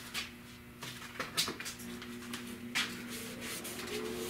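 A few short hissing bursts, then a shop towel rubbing rapidly back and forth over a wet vinyl dash pad, starting about three seconds in, as wax and grease remover is wiped over it. A steady low hum runs underneath from about a second and a half in.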